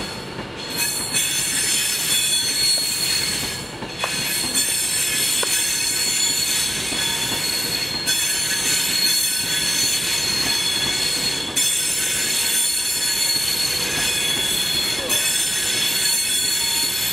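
Class 390 Pendolino electric train moving slowly past along the platform: steady running noise with a continuous high-pitched squeal.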